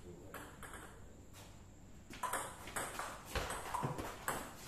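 Table tennis ball clicking off rubber paddles and the table in a rally. A few light taps come first, then from about two seconds in a quick run of hits and bounces a few tenths of a second apart.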